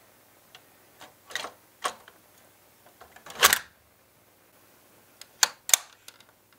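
Small sharp clicks and snaps of a diecast model Lamborghini Gallardo Superleggera's doors and engine cover being worked by hand: a few around the first two seconds, the loudest about three and a half seconds in, and a quick run of clicks near the end.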